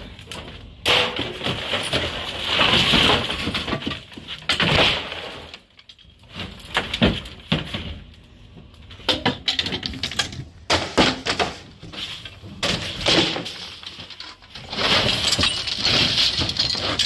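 Garbage and debris being unloaded and tossed onto a pile: loud clattering and crashing in irregular bursts, with sharp knocks between them.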